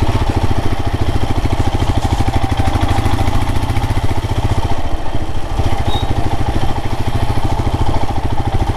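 Royal Enfield Himalayan's single-cylinder engine running steadily while the motorcycle is ridden, its exhaust pulses coming in a fast, even beat.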